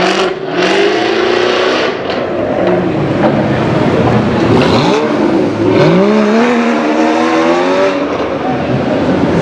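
Jaguar F-Type Project 7's supercharged V8 accelerating away, its note climbing, followed about halfway through by a second sports car accelerating hard with a steeply rising engine note, both echoing off the tunnel's concrete walls.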